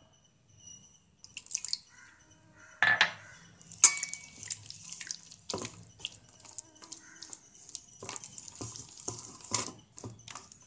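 Thick, wet spice paste being mixed and squeezed by hand in a stainless steel bowl: irregular squelches and smacks, with fingers scraping the metal. The sounds come thickest from about three seconds in.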